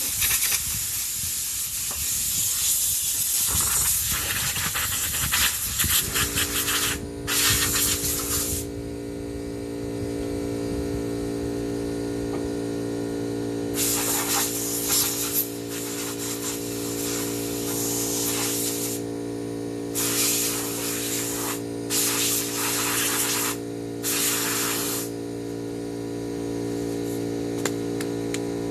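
Repeated bursts of hissing, like a jet of air or spray, each lasting about one to seven seconds. A steady machine hum starts about six seconds in and runs under them.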